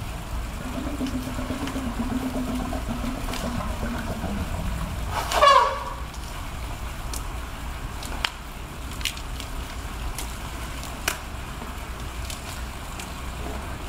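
Asian elephant giving a short, loud trumpet call that rises in pitch, about five seconds in. Before it a low drawn-out tone is heard, and a few faint clicks follow.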